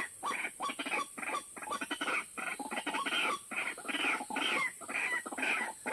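White-breasted waterhen calls: a rapid, unbroken series of harsh croaking notes, about three or four a second, over a steady high-pitched hiss.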